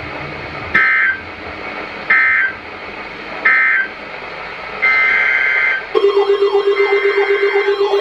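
Emergency Alert System SAME data bursts from a NOAA Weather Radio broadcast: three short bursts of digital screech a little over a second apart, which mark the end of the previous message. About five seconds in, the longer header bursts of the next alert begin. About six seconds in, a loud pulsing electronic alarm starts and runs under the next header burst.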